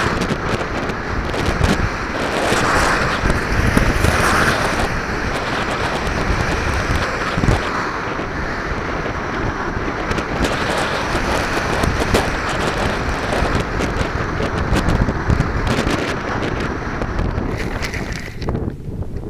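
Wind noise from the airstream rushing over a keychain camera's microphone on the tail of a radio-controlled glider in flight: a loud, steady rush. Near the end the hiss thins out sharply.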